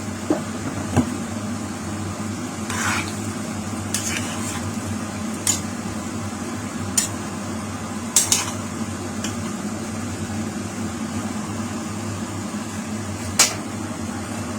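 A spoon or ladle clinking against a cooking pot a dozen or so times as the curry is stirred after water is added, over a steady low hum.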